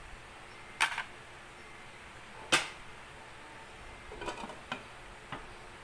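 A few sharp clinks of a glass pot lid against a metal cooking pot as the lid is handled and set on: two loud clinks in the first three seconds, then several softer knocks near the end.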